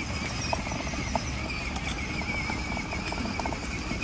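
Children's electric ride-on toy jeep driving over paving stones: a steady whine from its motor over a low rumble of the hard plastic wheels, with light clicks here and there.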